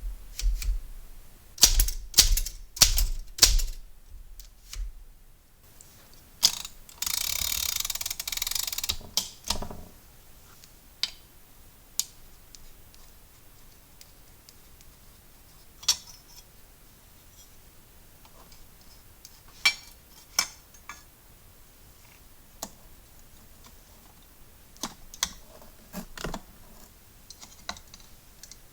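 Royal manual typewriter: a quick run of loud key clacks, then a steady rasping noise for about two seconds. After that come sparse light clicks and taps of the machine being taken apart.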